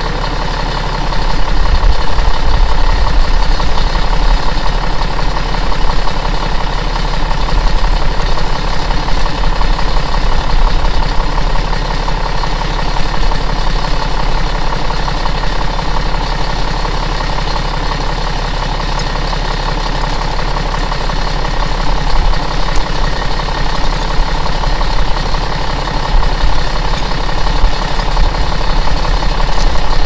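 Bulldozer's diesel engine idling steadily close by.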